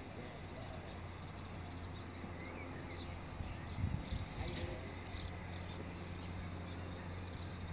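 Outdoor ambience: birds chirping over a steady low hum, with a few soft knocks about four seconds in.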